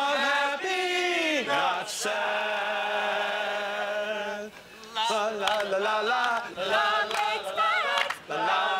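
A group of voices singing together without accompaniment, holding long notes, with a short break about four and a half seconds in.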